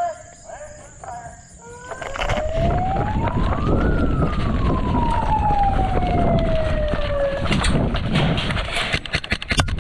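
A siren sounding the start of an airsoft game: it winds up for about two seconds, then slowly falls away, over a loud noisy background. A burst of sharp clicks follows near the end, the sound of airsoft guns opening fire.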